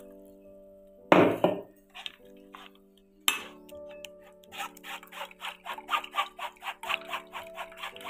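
A steel spoon scraping and pressing wet ground raw-mango pulp through a cloth-lined plastic strainer: a loud knock about a second in, a sharp clink a couple of seconds later, then quick rhythmic scraping strokes, about four a second, in the second half. Background music with steady tones throughout.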